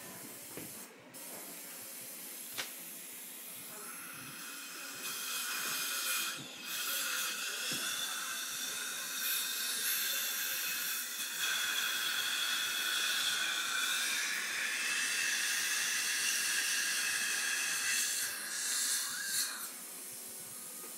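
Dental instrument working in the patient's mouth, giving a steady hiss with faint whistling tones. It builds up about four seconds in and stops shortly before the end.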